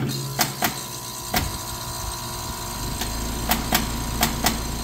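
Trane air conditioner switching on and running with repeated sharp pops at irregular intervals, about seven in all. A steady low hum joins in about three seconds in. The popping is a recurring fault that the owner says comes with its start-up cycles until the unit works itself out and runs fine.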